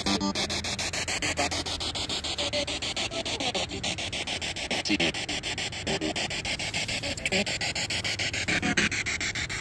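Spirit box sweeping through radio stations: hissing static chopped into rapid clicks, about eight a second, with brief snatches of broadcast sound between them.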